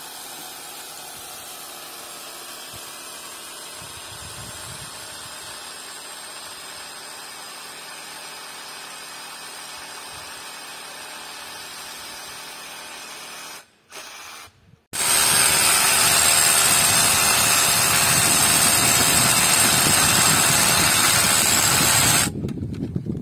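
Power drill running steadily, quieter at first. After a short break about 14 seconds in it is much louder and close, and it cuts off suddenly near the end.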